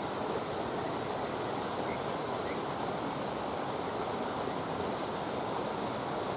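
Steady rushing of flowing water, like a stream, with a few faint pops from a wood campfire.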